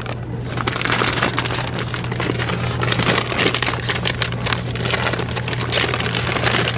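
Foil snack bags of Andy Capp's fries crinkling and rustling as they are handled and shifted on a shelf, a dense irregular crackle over a steady low hum.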